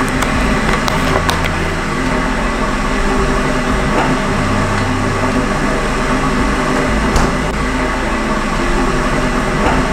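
Russell Hobbs electric kettle heating water toward the boil: a steady rushing rumble, with a couple of sharp clicks of things being handled.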